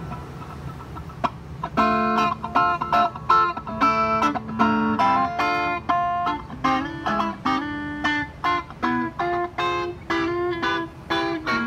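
Electric guitar played through a Fernandes FA15 practice amp on its clean channel. After almost two seconds of amp hum, rhythmic picked chords and single notes ring out in quick succession.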